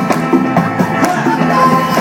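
Loud battle music with a steady drum beat and a repeating bass line.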